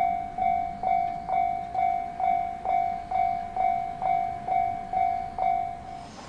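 Level-crossing warning bell on the JR Minobu Line ringing its steady ding-ding, a little over two strikes a second, each strike dying away before the next; it stops near the end.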